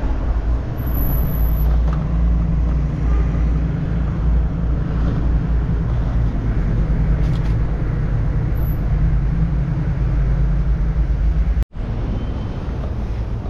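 City street traffic noise, a steady low rumble. It cuts out for an instant near the end.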